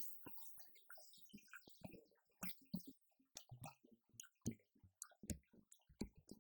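Electronic drum kit played through a Roland TD-50X module loaded with a downloaded sound-pack kit: separate drum hits at an uneven pace, some deep, some bright.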